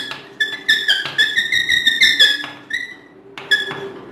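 Chalk squeaking against a chalkboard as words are written: a string of short, high, wavering squeaks, each stroke starting with a light tap, with a brief pause about two and a half seconds in before the squeaking resumes.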